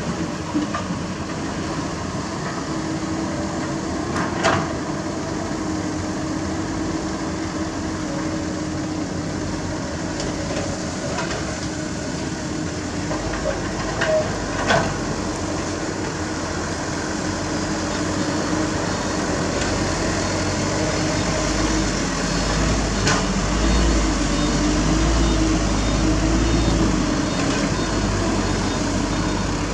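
Diesel engines of a Komatsu PC200 excavator and a dump truck running steadily, with a few sharp knocks. A deeper truck engine rumble grows louder from about halfway through as a dump truck moves close by.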